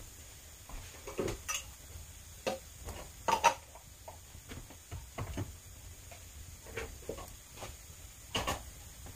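Wood fire crackling in a woodstove: irregular pops and snaps from freshly lit logs that still hold some sap, with louder pops about three and a half seconds in and near the end.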